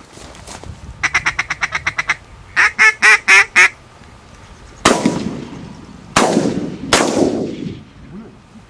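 A duck call blown in a fast run of about a dozen short quacks, then four louder, longer quacks. Then three shotgun shots, the last two close together, each with a long echoing tail.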